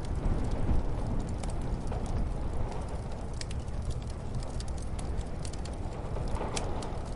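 Wood fire crackling with scattered sharp pops over a steady low rumble of muffled storm wind.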